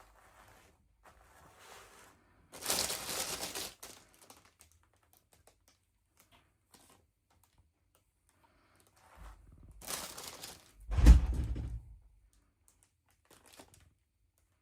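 Doll packaging being handled: two bursts of crinkling and rustling, about two and a half seconds in and again near ten seconds, the second ending in a heavy thud about eleven seconds in, with light clicks and taps between.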